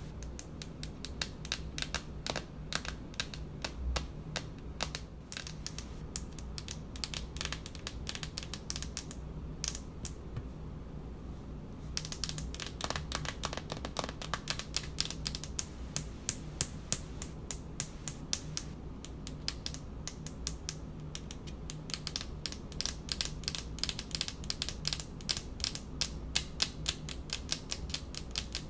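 Long fingernails tapping rapidly on a countertop, a fast run of sharp clicks that thins out for a couple of seconds about ten seconds in, then picks up again.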